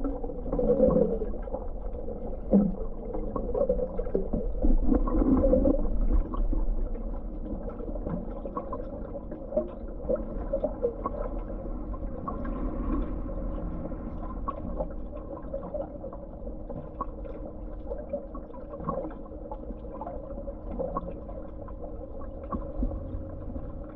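Swimming-pool water heard through an underwater microphone: muffled swirling and bubbling from a swimmer's movements over a steady hum. The swirling is louder in the first six seconds, then settles.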